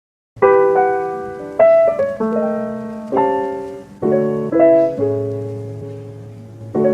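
Solo piano music beginning about half a second in: slow chords struck every second or so, each left to ring and fade.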